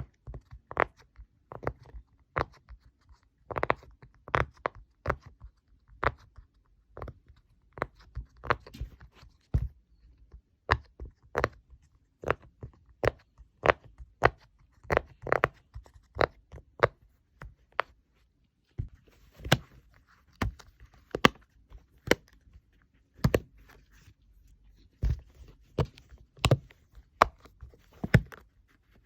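Pop fidget toys being pressed: a long run of sharp single pops, about two a second and unevenly spaced, with a short pause about two-thirds of the way through.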